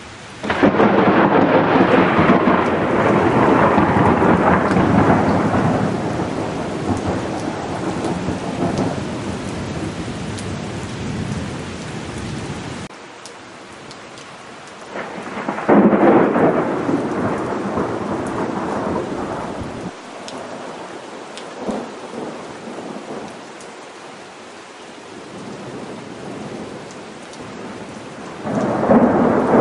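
Thunder over steady rain: a sudden loud peal about half a second in that rolls on and fades over about twelve seconds, a second peal about fifteen seconds in, and a third starting near the end.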